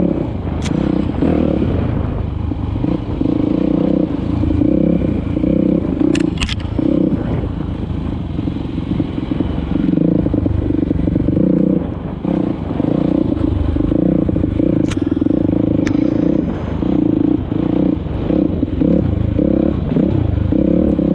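Dirt bike engine running while being ridden on a rough trail, its note rising and easing with the throttle, with clatter from the bike over the ground and a few sharp knocks.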